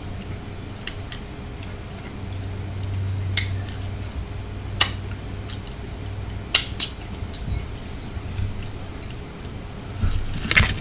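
Close-miked eating sounds: scattered wet clicks and smacks from chewing shrimp in sauce, with some that may be light cutlery taps, over a low steady hum.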